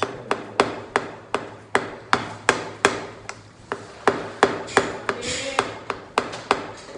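A quick, uneven series of sharp knocks, about three a second, with a brief scraping sound about five seconds in.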